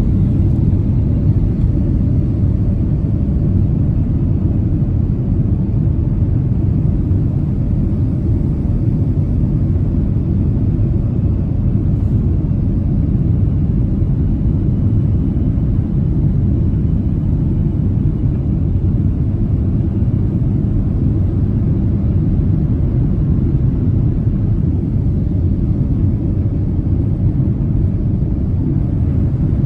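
Steady low cabin rumble of a Boeing 767-300ER descending on approach to land with its flaps extended, heard inside the cabin from a seat over the wing.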